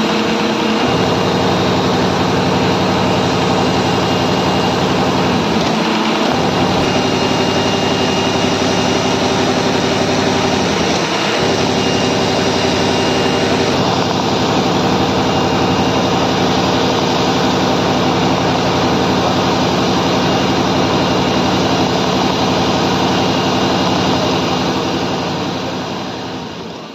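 Industrial sewing and perforation machine running steadily, a dense mechanical whir with a motor hum whose pitch shifts a few times. It fades out near the end.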